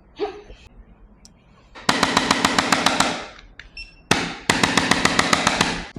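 Rapid, even percussive tapping, about ten strikes a second, in two bursts of just over a second each, with a single knock just before the second burst.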